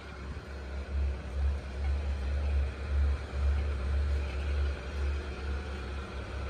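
Wind buffeting the microphone, a low rumble that swells and drops in uneven gusts.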